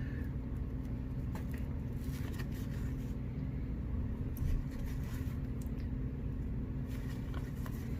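Steady low electrical hum of room background, with a few faint light ticks from trading cards being flipped through by hand.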